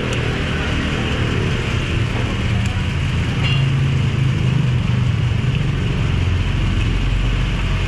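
Toyota Avanza petrol engine idling steadily under the open hood, a low even rumble with no knocks or breaks.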